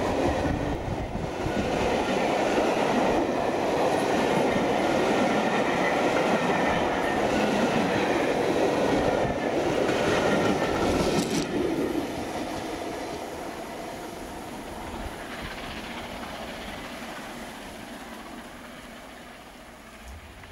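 Coaches of a passing steam-hauled train rumbling and clattering over the rails. The sound drops sharply about eleven seconds in as the last coach goes by, then fades as the train draws away.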